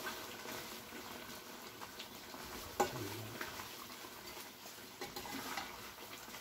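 A metal spoon stirring a thick chicken curry in an aluminium pot, scraping and clinking against the pot, with the sauce sizzling underneath. One sharper knock of the spoon on the pot comes about three seconds in.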